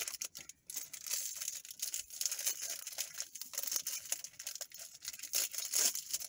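Minecraft mini-figure blind-pack wrapper being torn open and crinkled by hand: a dense run of small crackling rustles.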